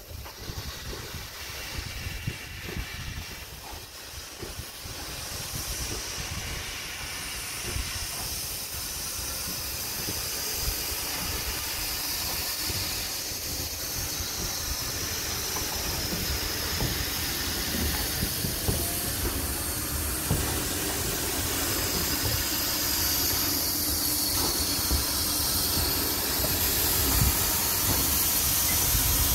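SNCF 241P steam locomotive moving slowly past at close range, its steam hissing steadily over a low rumble of the running gear, with scattered knocks and clanks. The sound grows louder as the engine draws near.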